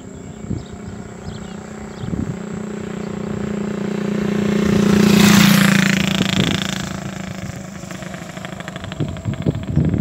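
A motorcycle passes close by: its engine note swells to a peak about five seconds in, then fades away. A few irregular thumps come near the end.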